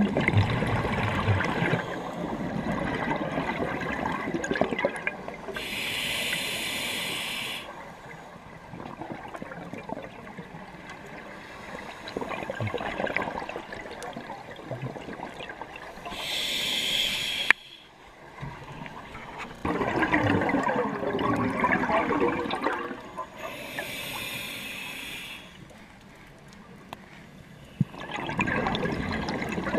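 Scuba diver breathing through a regulator underwater. Three times a short hiss sounds from the regulator as he breathes in, and between these breaths exhaled air bursts out as loud bubbling.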